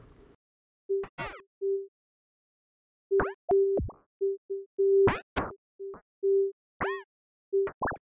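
Software synthesizer notes triggered by balls bouncing in the Bouncy Notes MIDI effect in Ableton Live. It is an irregular string of short notes, most at one steady pitch, mixed with quick chirps that sweep up and down in pitch, with silent gaps between them.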